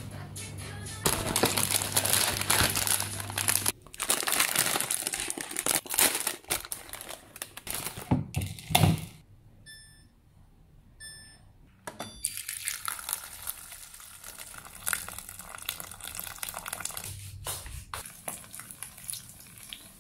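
Plastic packaging crinkling as a box is opened and unwrapped. After a quiet gap come two short electronic beeps from a hot-water dispenser's buttons, then a steady hiss.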